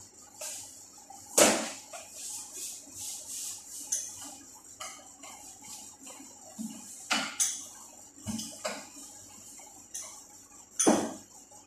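Dough being rolled out with a rolling pin on a stainless steel worktable: scattered knocks, clicks and scrapes, with one louder knock a second or so in and a quick run of light clicks after it.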